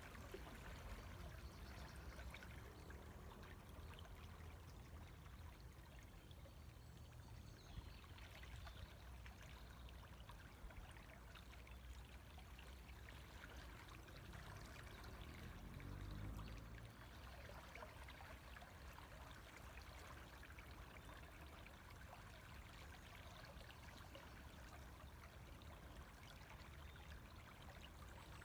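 River water flowing in a steady, even rush, recorded quietly. A brief low rumble swells and fades about halfway through.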